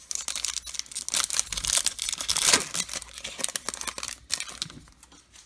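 The foil wrapper of a Topps Chrome Update baseball card pack being torn open and crinkled by hand: dense crackling that is loudest about halfway through and dies away near the end.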